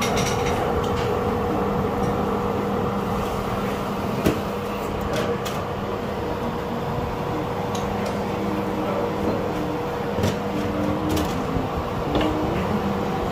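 Steady hum of a kitchen fan, with a few light clicks and knocks scattered through it.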